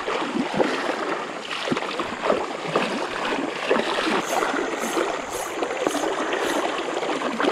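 Water sloshing and splashing around the legs of someone wading through a shallow, flowing river, in irregular splashes over the steady rush of the current.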